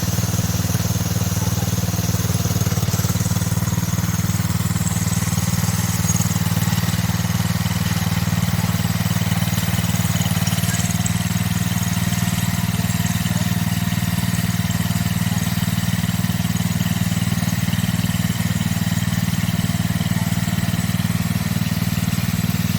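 Small garden tractor engine running steadily at a constant speed, with no change in pitch.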